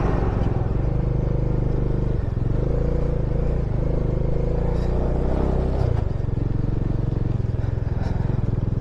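Bajaj Dominar 400's single-cylinder engine running steadily, kept going in the freezing cold so it does not stall; its pitch shifts about two seconds in and drops lower near six seconds.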